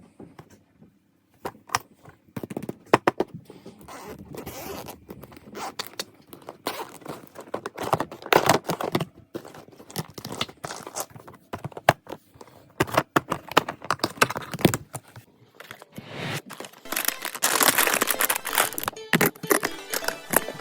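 Glass nail polish bottles clicking and clinking against each other and a plastic storage container as they are handled and set in place, sped up: a quick, irregular run of clicks and short scrapes, with a longer scraping, crinkling stretch near the end.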